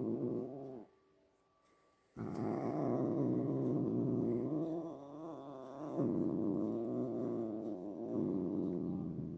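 Domestic cat making long, low, drawn-out vocal calls: one cuts off under a second in, and after a pause of about a second another starts abruptly and runs on with only a brief dip in the middle.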